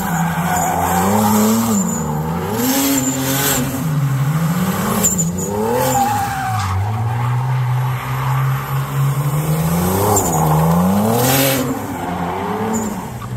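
A car engine being revved, its pitch rising and falling again and again, with a longer steady hold around the middle.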